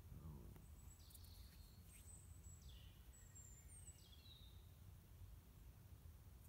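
Near silence: faint outdoor ambience with a low steady rumble, and a few faint, high bird chirps and short falling whistles in the first half.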